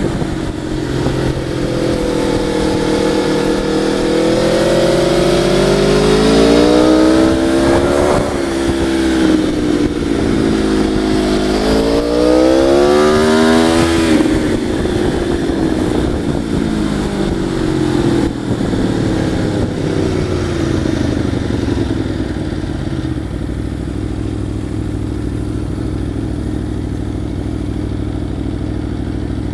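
Motorcycle engine heard from the rider's helmet. It revs up, drops pitch about eight seconds in as it shifts gear, revs up again to a peak around fourteen seconds, then eases off to a lower, steadier run, with a rush of wind noise underneath.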